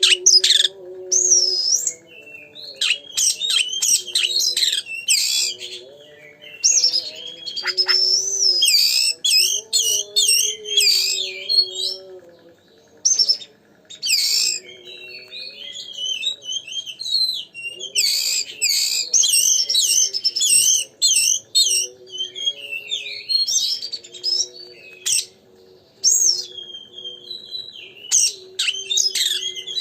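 Oriental magpie-robin (kacer) singing hard in fast, varied whistled phrases broken by short pauses, the loud, energetic song used as a lure to provoke other male kacer. A fainter, lower wavering tone runs underneath.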